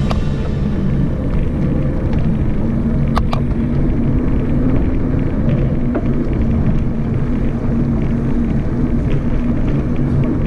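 Wind buffeting the microphone of an action camera on a moving bicycle, a steady low rumble mixed with road and tyre noise. A sharp click about three seconds in.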